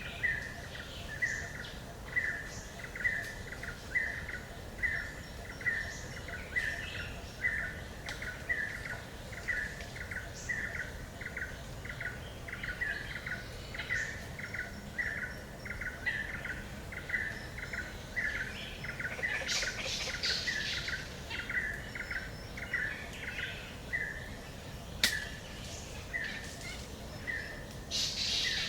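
Forest ambience: a bird repeats one short call about one and a half times a second, steadily, while other birds chirp higher and more sparsely over a soft background hiss. There is a sharp click about 25 seconds in.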